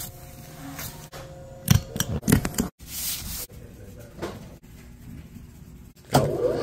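Fabric flower-making handwork: a cluster of sharp snips and clicks about two seconds in and a short swish about a second later. Near the end a machine starts running.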